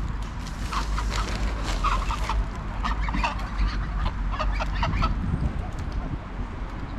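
Greylag geese giving short, soft calls in quick runs while grazing, quieter for the last couple of seconds, over a steady low rumble.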